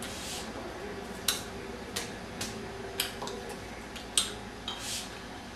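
A string of about seven sharp, irregularly spaced clicks, with a short soft hiss near the start and another near the end.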